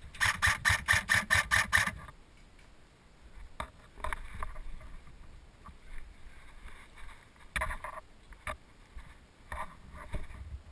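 Airsoft gun firing a rapid string of about ten shots in two seconds, evenly spaced. After it come scattered fainter clicks and rustles.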